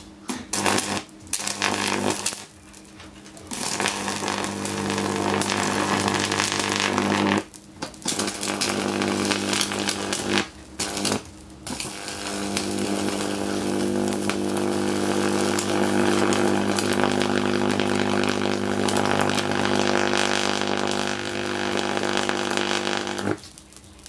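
High-voltage arc from a microwave oven transformer buzzing loudly as it burns into an LCD TV panel. It cuts out and restrikes several times in the first dozen seconds, then buzzes steadily until it stops just before the end.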